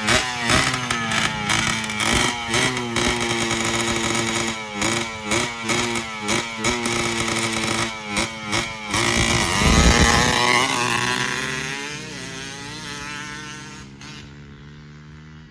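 Dirt bike engine revving hard, its pitch climbing and dropping again and again as the throttle is worked. It is loudest about two thirds of the way in, then fades away as the bike rides off.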